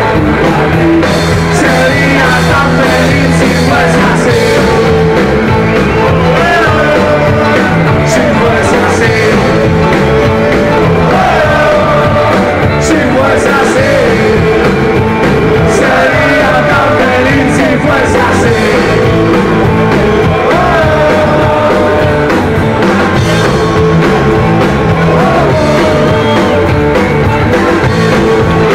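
Rock band playing live, loud electric guitars, bass and drums, with a man singing into a microphone.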